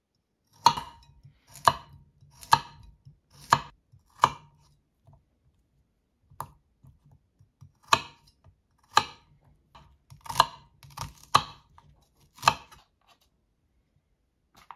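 Chef's knife chopping cherry tomatoes and cucumber on a wooden cutting board. Single slow strokes come about once a second, each striking the board, with a pause of a couple of seconds around the middle.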